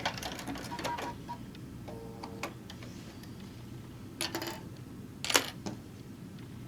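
Fabric and parts being handled at a sewing machine: scattered small clicks and rustles, with two louder clicky clatters about four and five and a half seconds in, and a short steady electronic tone about a second in.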